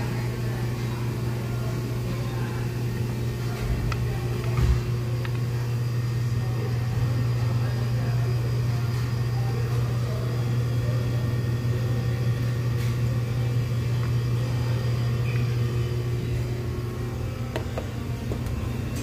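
Steady low machine hum, with a single soft knock about five seconds in.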